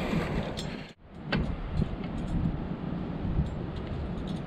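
Wind buffeting the microphone on an open sea cliff, a steady rough rush. It cuts out abruptly for a moment about a second in, followed by a single sharp click.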